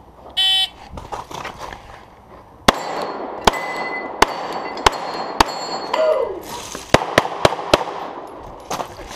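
A shot timer beeps once to start the stage. About two seconds later a pistol fires roughly nine shots in the next six seconds, some in quick pairs, each followed by echo off the range.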